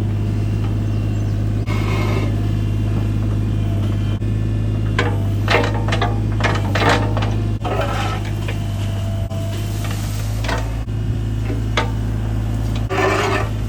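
Bobcat E32 mini excavator's diesel engine running steadily, with scattered knocks and scraping, a cluster about five to seven seconds in and another near the end.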